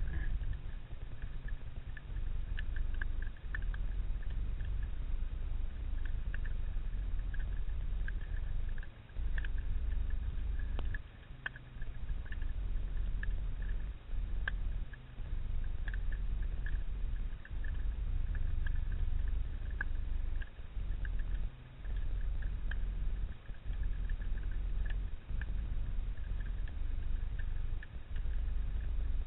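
Underwater ambience recorded below the surface over a rocky, weedy seabed: a low rumble of water surge that dips briefly every few seconds, under a constant fine crackle of small clicks with occasional sharper single clicks.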